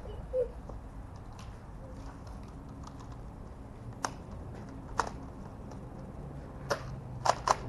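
Scattered sharp clicks and snaps of Nerf Rival blasters in play. There are single clicks about four and five seconds in, then a quick cluster of several near the end.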